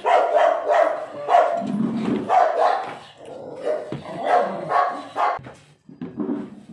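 A dog barking repeatedly in a run of short barks, with a brief pause about halfway through.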